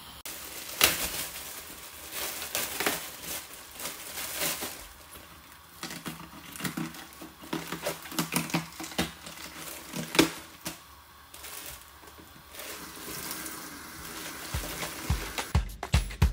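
Crisp iceberg lettuce leaves crinkling and crackling as hands pull and rub them under a running kitchen tap, water splashing into a stainless steel sink. Near the end, background music with a steady beat comes in.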